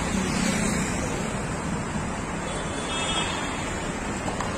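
Steady road traffic noise: a continuous rushing rumble with no single vehicle standing out.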